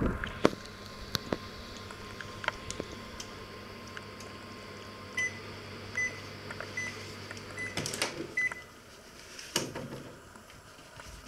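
Panasonic inverter microwave oven running with a steady hum that stops about halfway, followed by a series of short high beeps under a second apart: the end-of-cooking signal. Then a clatter and clunk as the oven door is opened.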